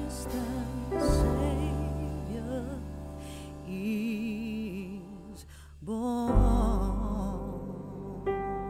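Background music: a song with a singing voice holding long notes with vibrato over a deep bass.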